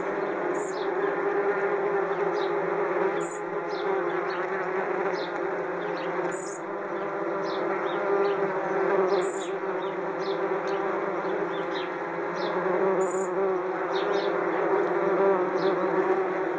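A large swarm of wasps buzzing steadily around their nest, a dense, unbroken hum. Sparrows chirp in short calls over it throughout.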